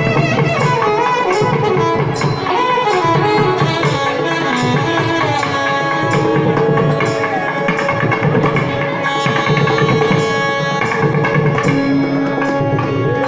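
Carnatic ensemble playing: saxophone, flute and violin carry a gliding, ornamented melody together over steady mridangam drumming.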